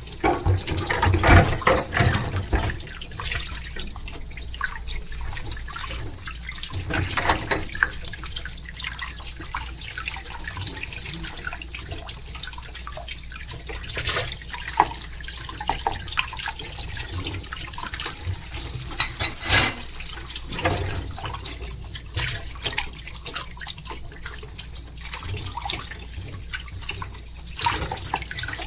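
Dishes being washed under a running tap: a steady stream of water with clinks and clatters of tableware knocking together, the loudest clatters about a second in and near two-thirds through.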